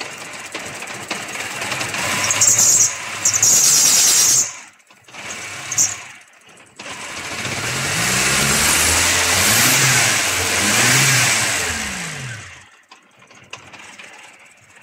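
Old four-cylinder pushrod engine running with its rocker cover off and the valve clearances freshly set, revved up and down about three times in the second half, then cut off about 12.5 seconds in.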